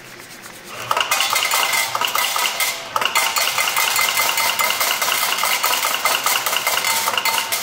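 Bar slot machine paying out a €100 win: from about a second in, a rapid run of repeated electronic payout tones and clinks, several a second, as the win is counted out, with a brief break near three seconds.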